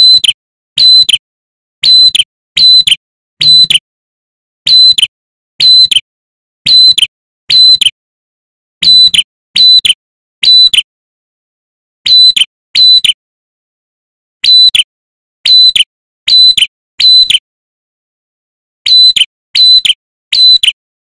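Male ashy tailorbird calling: a loud, clear whistled note that drops in pitch, repeated about once a second in runs of two to four notes, with short pauses between runs.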